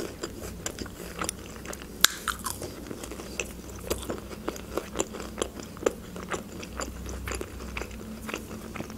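Close-miked chewing of a breaded chicken nugget with the mouth closed: irregular crunches and wet mouth clicks, about two or three a second, with one sharper click about two seconds in.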